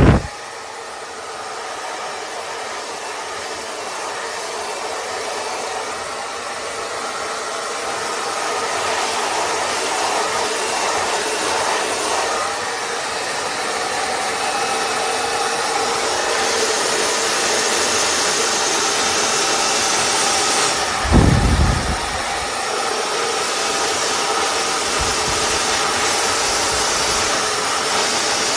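BaBylissPRO Nano Titanium Portofino 2000-watt hair dryer running, a steady airy rush with a faint whine that grows gradually louder. A brief low thump comes about three-quarters of the way through.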